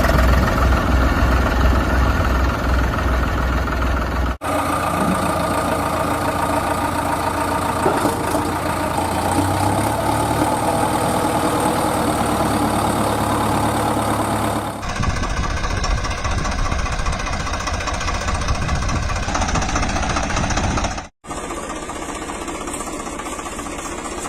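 An engine running, with a low, even pulsing at the start. It comes in separately cut stretches that break off abruptly about four seconds in and again near fifteen seconds. It drops out briefly near twenty-one seconds and is quieter afterwards.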